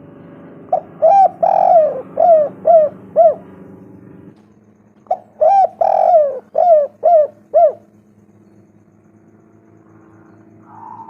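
Spotted dove (tekukur) cooing: two phrases of about six coos each, the second coo of each phrase longer and drawn out, a second or two apart.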